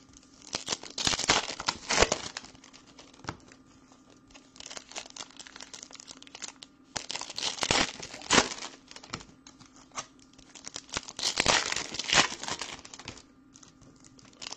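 Crinkling and tearing of trading-card pack wrappers being ripped open and handled, in four bursts a few seconds apart with a couple of sharp clicks between them.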